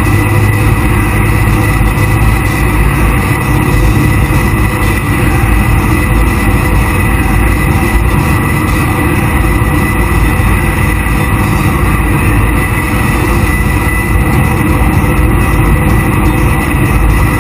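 Jet boat running at speed on open water: a loud, steady rush of engine, water and wind, heavy in the low end, with a thin steady whine above it.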